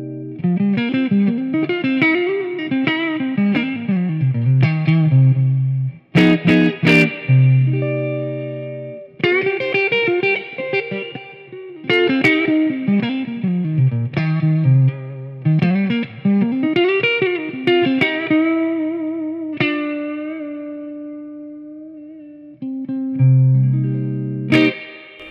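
1990s Made-in-Japan Squier HSS Stratocaster-style electric guitar played clean on its neck pickup through a Marshall AVT Tribute amp. Runs of notes climb and fall, broken by strummed chords about six seconds in and again near the end, with held notes left to ring and fade.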